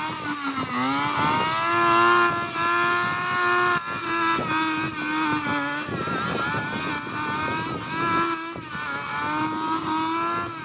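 Brush cutter's small petrol engine running, its pitch sagging and recovering several times as the cutting head bites into the weeds.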